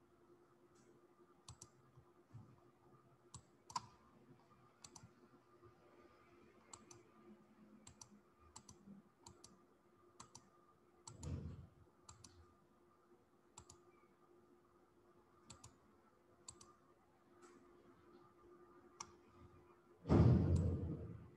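Computer mouse clicking at irregular intervals as slides are paged through, over a faint steady hum. A brief low rush of noise comes about halfway through, and a louder burst of noise lasting about a second comes near the end.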